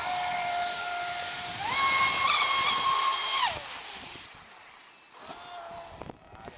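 Traxxas Spartan RC speedboat on 6S LiPo power running flat out, its brushless electric motor giving a high, steady whine over the hiss of spray. The whine steps up in pitch about a second and a half in, then falls in pitch and fades after about three and a half seconds. A brief, lower whine comes back near the end.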